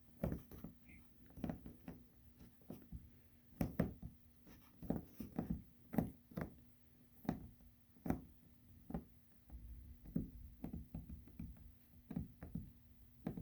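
Hands pressing and working epoxy putty into a hole in a kayak hull: irregular soft knocks and taps, one or two a second.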